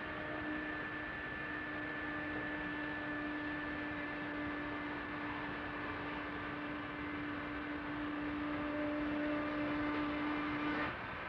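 Steam-powered mill machinery running, a steady mechanical din with one steady tone held over it for about ten seconds that cuts off abruptly near the end.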